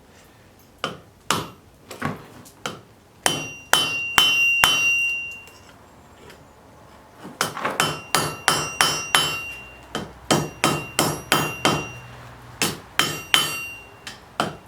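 Blacksmith's hammer striking a railroad spike on the anvil. A few scattered blows come first, then a short run in which the anvil rings with a high tone. After a pause of about two seconds, steady hammering follows at about three blows a second.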